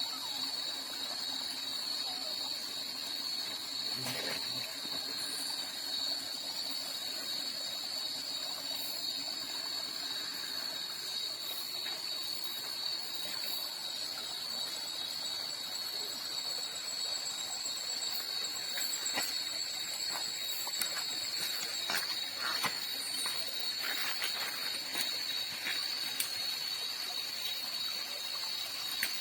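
Night insects chorusing in a continuous high-pitched drone, with a second thinner, higher tone and scattered small clicks and taps, more of them in the second half.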